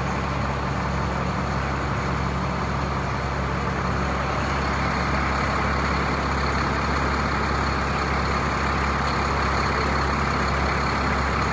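Large coach bus engine idling steadily at close range, a constant low hum with no change in speed.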